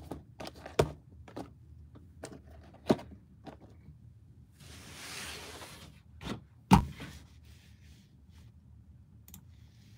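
Cardboard blaster boxes being set down on a stack: a series of light knocks and thunks, with a brief scrape of cardboard sliding on cardboard about five seconds in.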